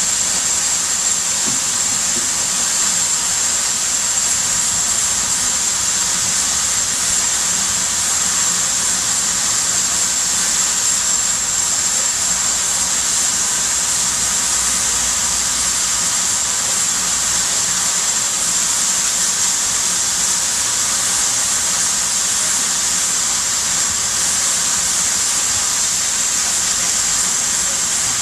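BR Standard Class 5 4-6-0 steam locomotive standing still and letting off steam with a steady, high, unbroken hiss.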